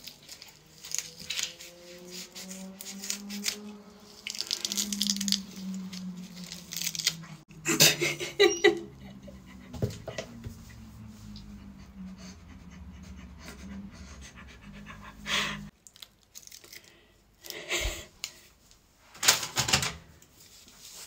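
Crinkling and tearing of a latex special-effects prosthetic being cut with scissors and peeled off the face, loudest about 8 seconds in and again near the end. Under it runs a steady low hum with sliding whine-like tones in the first few seconds, and the hum cuts off about three-quarters of the way through.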